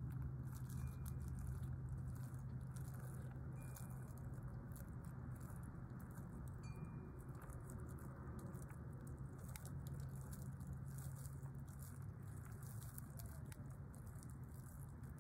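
Faint, scattered crackling clicks of a praying mantis's mandibles chewing through a honeybee, over a steady low hum.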